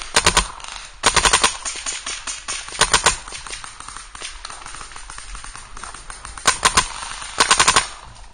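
Empire Vanquish electronic paintball marker firing in five quick bursts of several shots each, with fainter shots from other markers around the field in between.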